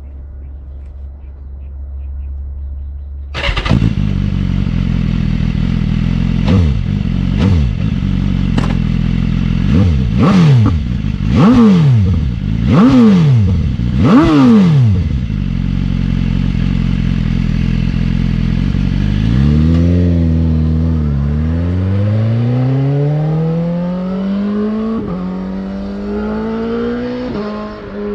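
2015 BMW S1000RR's inline-four engine through its stock exhaust: it fires about three and a half seconds in and settles to idle, then takes seven quick throttle blips, each revving higher than the last. After idling again it climbs steadily in revs over the last several seconds, with brief dips along the way.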